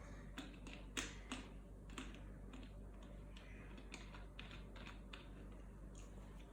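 Faint, irregularly spaced clicks and taps, about a dozen of them, the loudest about a second in.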